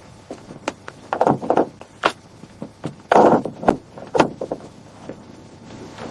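Irregular knocks and thuds of wooden framing lumber being set and struck, with two short scraping, shuffling noises in between.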